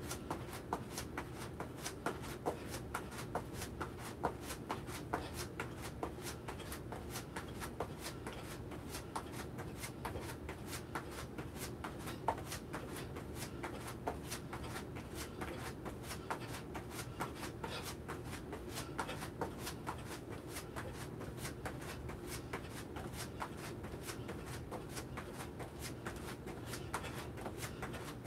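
A person doing jumping jacks: feet landing lightly on the floor in a quick, even rhythm of short thuds.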